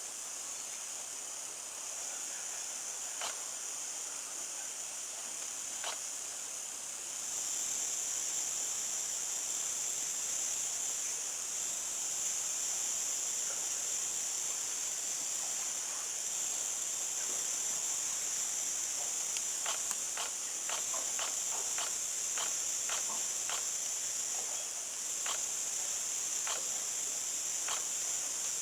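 Rainforest insects buzzing in a steady high-pitched drone that grows louder about seven seconds in. A run of about a dozen sharp ticks comes past the middle, with a few single ticks elsewhere.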